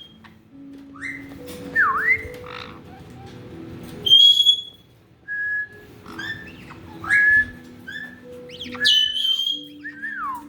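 Caique parrots whistling and calling: a string of short, shrill rising and falling whistles and squawks, loudest about four seconds in and again about nine seconds in. Faint background music plays underneath.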